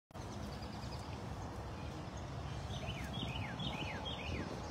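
Outdoor background noise with a steady low rumble, and a bird singing a quick run of about six short, descending whistled notes a little past halfway. The sound cuts out for a moment at the very start.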